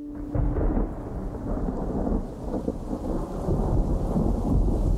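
Heavy rain with a continuous low rumble of thunder.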